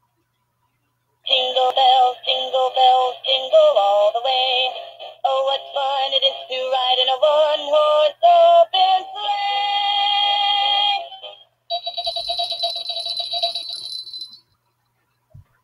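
Battery-powered animated plush snowman toy singing a Christmas song with music from its built-in speaker. The song starts about a second in and ends on a long held note, a short closing phrase follows, and there is a faint click near the end.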